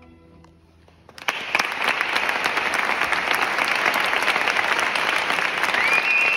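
The last chord of a string orchestra fades into a brief hush, then the audience breaks into steady applause about a second in.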